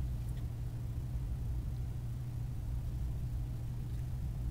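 A steady low hum of background room noise.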